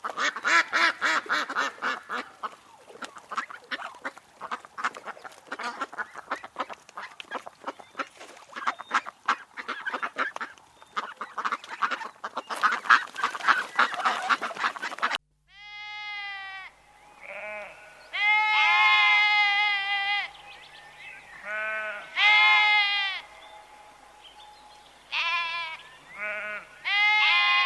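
Farm animals calling: a dense clamour of many overlapping calls from a flock, then, after an abrupt cut about halfway, a series of separate drawn-out calls, each rising then falling in pitch.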